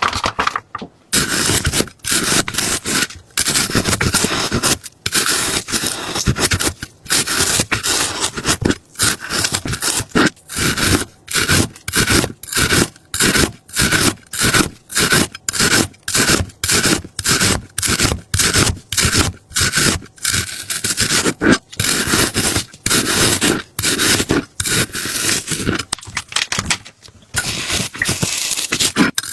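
Rhythmic scraping, about two strokes a second, each stroke a rough rasping noise with short pauses between.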